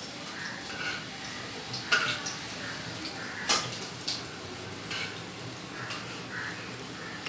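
Mustard oil heating in a steel kadai over a gas burner, with a low steady hiss. Two sharp clicks sound, about two and three and a half seconds in, typical of kitchen utensils knocking.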